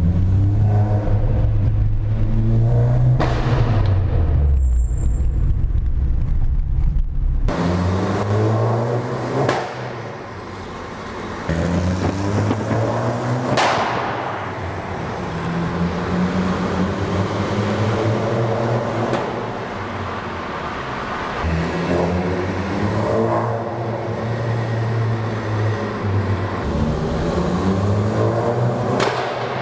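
Fiat Abarth 500's turbocharged 1.4 four-cylinder, running through a Ragazzon exhaust with the catalytic converter replaced by a straight decat pipe, accelerating hard through the gears. The engine note climbs and drops at each shift, with a few sharp exhaust pops.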